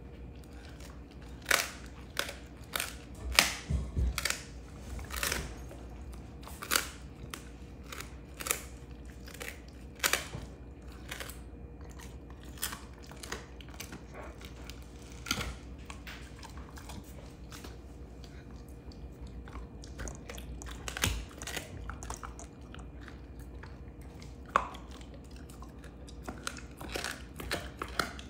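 Belgian Malinois chewing on a beef rib bone: irregular sharp crunches and cracks as its teeth work the bone. They come thick and fast in the first ten seconds or so, then thin out to scattered cracks with longer pauses.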